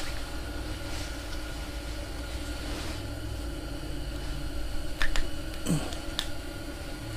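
A steady low mechanical hum with a few sharp clicks and knocks about five seconds in.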